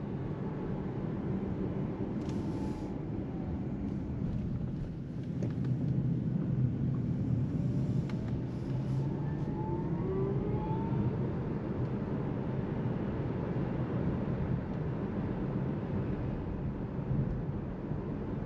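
Cabin noise of a Seres 3 electric SUV driving on a town road: steady tyre and road rumble, with a faint whine from the electric drive rising in pitch about ten seconds in as the car speeds up.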